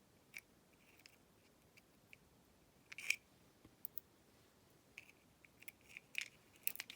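Scattered small, sharp clicks and taps of a tool and small metal parts against a plastic lockout padlock body while a locking ball is being fitted beside the actuator. The loudest click comes about three seconds in.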